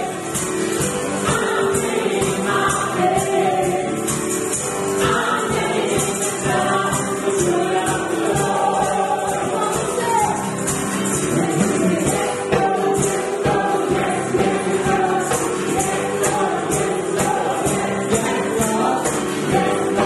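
Worship music: a group singing together, with a tambourine shaken in a steady beat.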